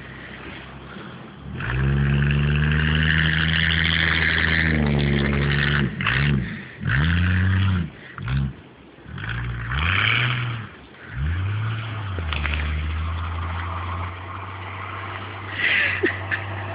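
Jeep engine revving hard and held high for a few seconds, then several quick revs that rise and fall, before settling to a steady idle.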